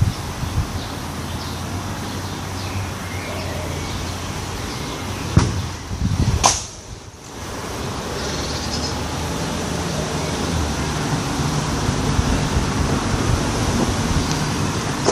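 Wind rumbling and buffeting on the microphone, with a low hum underneath. Two sharp knocks come about five and six and a half seconds in.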